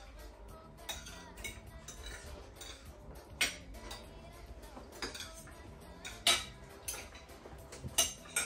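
Forks and spoons clinking and scraping on ceramic plates as several people eat, in irregular sharp clinks, the loudest about three and a half and six seconds in.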